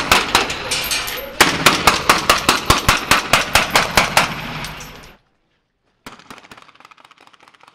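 Rapid rifle fire: strings of sharp shots at about five a second, echoing off hard walls. It cuts off abruptly about five seconds in; a second later fainter rapid shots start again.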